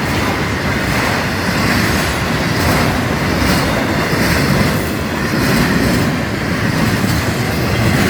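Florida East Coast Railway train cars rolling past: a steady, loud rumble of steel wheels on the rails, with occasional clicks as wheels cross rail joints.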